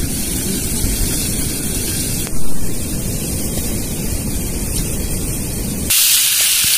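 Wind rumbling on the microphone for most of the stretch, with one brief louder swell a little over two seconds in. About six seconds in, it changes abruptly to hot oil sizzling as food fries.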